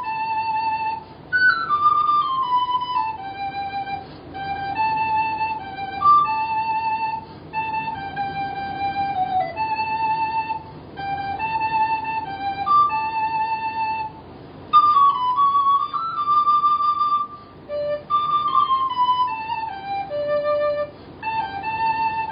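Yamaha YRS-302BIII soprano recorder playing a Christmas carol melody, one clear note at a time, with stepwise descending runs and short pauses between phrases.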